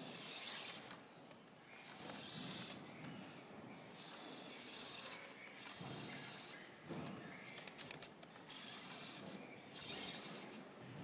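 Small electric gear motor of a Siku Control 1/32 radio-controlled Claas tractor model whirring in short bursts, about half a dozen times, with a rasping gear noise as the model drives on sand.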